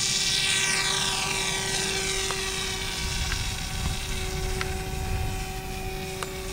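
Radio-controlled model airplane taking off from snow and climbing away, its motor and propeller making a high whine that falls in pitch over the first few seconds as it draws off, then carries on steadily.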